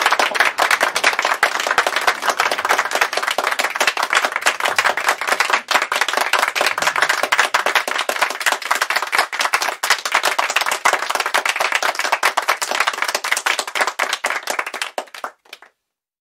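Audience applauding, a steady patter of many hands clapping that stops abruptly near the end.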